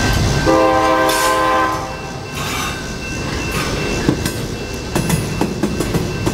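Double-stack intermodal freight cars rolling past with a steady rumble. A horn sounds one held note for about a second and a half near the start, and from about four seconds in the wheels click over rail joints.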